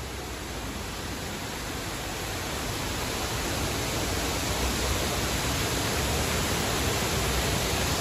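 Water rushing down a man-made rock cascade waterfall: a steady rush of noise that grows gradually louder.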